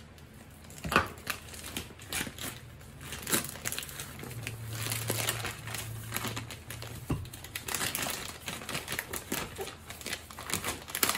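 Plastic courier mailer bag being cut open with a folding knife and crumpled as its contents are pulled out: irregular crinkling and rustling of plastic, with a sharper click about a second in.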